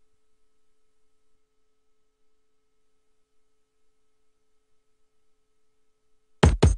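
Near silence with a faint steady tone. Near the end, electronic background music with a fast, regular drum-machine beat cuts in loudly.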